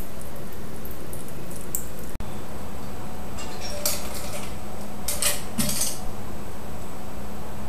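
Glassware and metal bar tools clinking a few times around the middle, over a steady background hiss.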